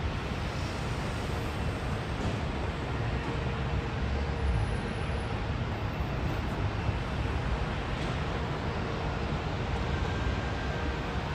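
Jet airliner on final approach: the four Rolls-Royce Trent 900 turbofans of a British Airways Airbus A380 making a steady low rumble, with a faint steady whine through it.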